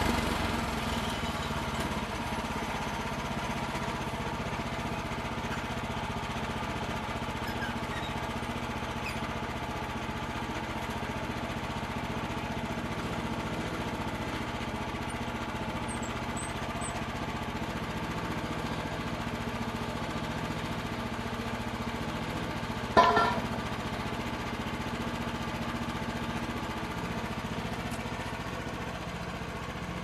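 Small gasoline engine of a Woodland Mills HM122 portable bandsaw mill running steadily under load as the blade saws through a cedar log. A single sharp knock about three-quarters of the way through is the loudest sound.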